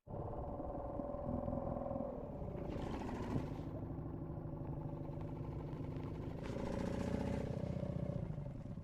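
An engine running steadily, its pitch easing down a couple of seconds in and rising a little near the end.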